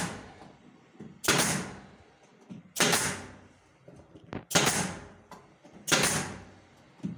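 Pneumatic nail gun firing four times, about a second and a half apart, nailing a chipboard side panel onto wooden crosspieces; each shot is a sharp snap that fades over about half a second.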